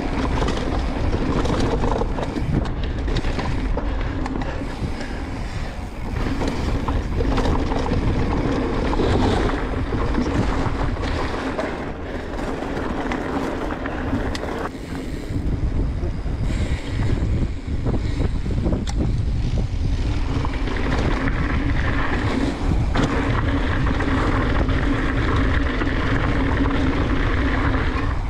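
Transition Sentinel mountain bike ridden along a dirt trail: tyres rumbling and the bike rattling over the ground, with wind buffeting the microphone.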